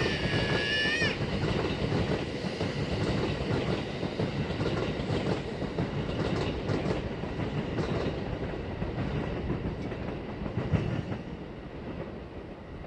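JR Tokaido Line local electric commuter train running along the tracks, with a steady rumble and wheels clattering over the rail joints that fades slightly toward the end. A brief high squeal from the train sounds in the first second.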